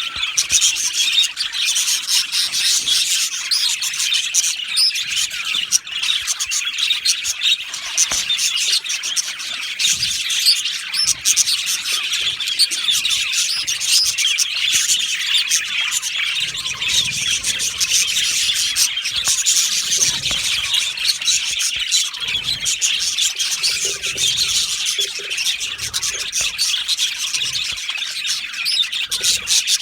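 A colony of budgerigars chirping and warbling continuously, many birds at once in a dense, unbroken chatter.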